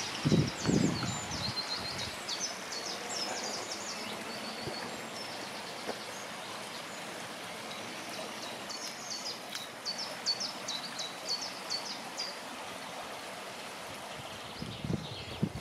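A small stream running under a footbridge, a steady rush of water. A songbird sings quick, high, repeated notes over it at the start and again from about 9 to 12 seconds in, and a few low thumps come in the first second.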